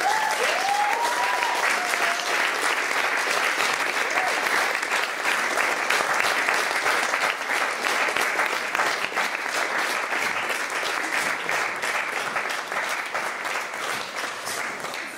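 Audience applauding, a dense run of clapping that slowly dies down toward the end. A few voices call out in the first couple of seconds.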